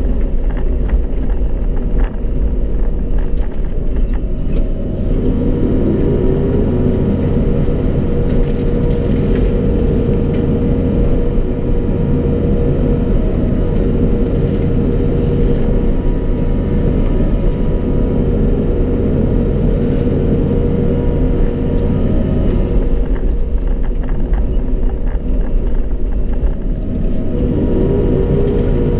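Mini excavator's diesel engine running under load while a boom-mounted hydraulic brushcutter works. It has a heavy steady rumble and a steady high whine that rises in pitch about five seconds in, drops away for a few seconds past the three-quarter mark, and rises again near the end.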